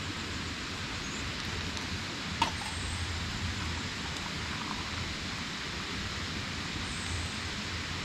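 Steady rush of flowing river water, with one sharp knock about two and a half seconds in.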